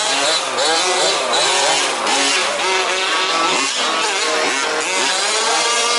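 Several 1/5-scale petrol RC off-road cars' small two-stroke engines revving up and down, overlapping one another.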